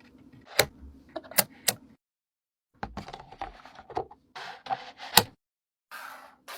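Plastic fidget toys being clicked and handled: a few sharp clicks, then a run of clicks and rustling with one loud snap about five seconds in, broken by short silent cuts.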